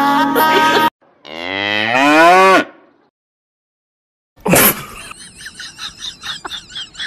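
A cow mooing: one long call of about a second and a half, rising in pitch.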